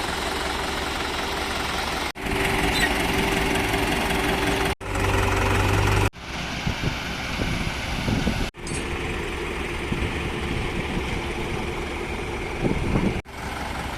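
Heavy diesel engines running, heard in a series of short clips that cut off abruptly every two to four seconds; the loudest segment, about five to six seconds in, is a deep steady hum.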